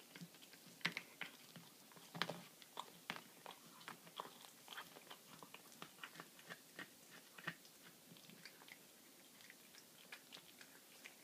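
Domestic cat chewing a baby rabbit carcass: irregular crunches and cracks of small bones, several a second. The loudest cracks come about one and two seconds in, and the chewing thins out near the end.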